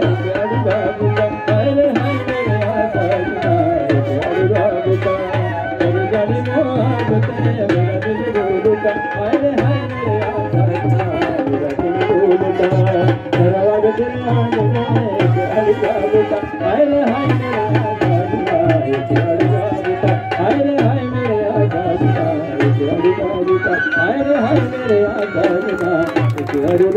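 Folk dance music: drums beating a steady, fast rhythm under a wavering melody line.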